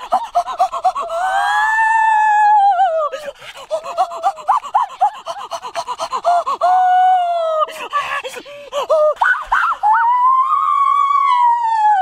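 A high-pitched human voice making excited wordless cries: quick wavering yelps alternating with long drawn-out exclamations that rise and fall, the longest about a second in and again near the end.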